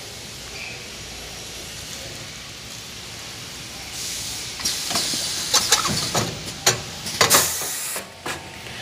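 Semi-automatic tissue bag-packing machine: a steady hiss. From about four seconds in comes a quick run of sharp clicks and crinkles of plastic film, with a strong burst of air hiss near the end as a tissue pack is bagged.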